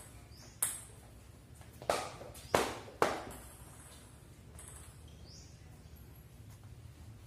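Table-tennis ball clicking between points: four sharp taps within the first three seconds.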